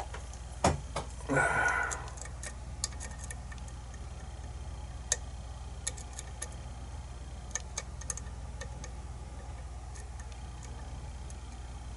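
Small metallic clicks and ticks of a lock pick working the pins inside a pin-tumbler lock cylinder, scattered and irregular. A louder click and a short scrape come in the first two seconds, over a steady low hum.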